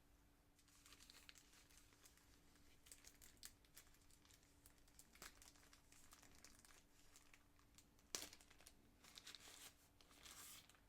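Faint crinkling and rustling of packaging being handled and unwrapped, with scattered small crackles and clicks. The sharpest crackle comes about eight seconds in, and a longer rustle follows near the end.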